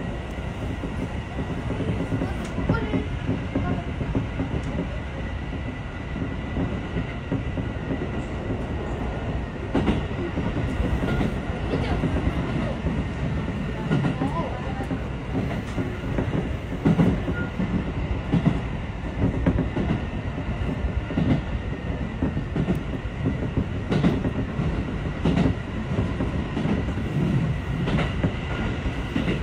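Tobu Railway electric train running along the line, heard from the driver's cab: a steady rumble of wheels on rail, with sharp clicks now and then as the wheels pass rail joints and a thin steady high tone.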